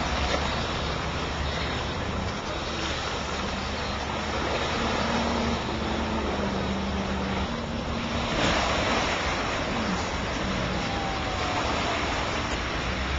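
Gibbs Aquada amphibious car running through the water: an engine drone that shifts a little in pitch, mixed with the rush of water.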